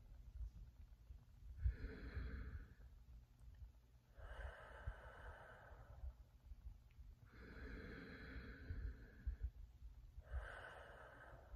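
A woman breathing slowly and deeply as a mindfulness settling exercise: four long, breathy rushes of air, each one to two seconds long, with short pauses between them, over a faint low rumble.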